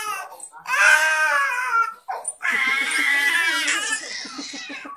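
A toddler crying in two long, loud wails, the first starting about half a second in and the second about two and a half seconds in, with a brief break between them.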